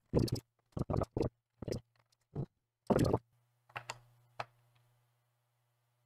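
Pry tool and fingers working a laptop hard drive in its rubber holder loose from the drive bay: a string of short clicks, knocks and scrapes against the plastic case, some quick and some a little drawn out, stopping about four and a half seconds in.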